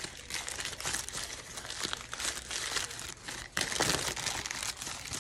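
Paper McDouble burger wrapper crinkling and rustling as it is unfolded by hand, loudest a little before four seconds in.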